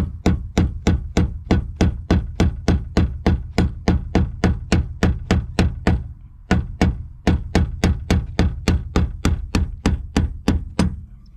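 Claw hammer tapping repeatedly on the fuel pump sending unit's lock ring, to knock the ring around and break it loose from the tank. Steady sharp taps at about four a second, with a short pause a little past halfway.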